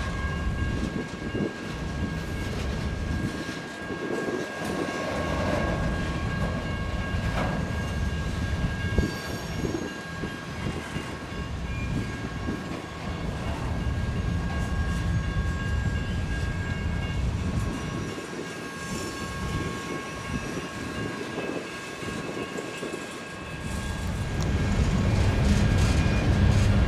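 Freight train rolling past, a low rumble of locomotive and cars on the rails that fades for a few seconds and swells again near the end, with a steady high tone held through most of it.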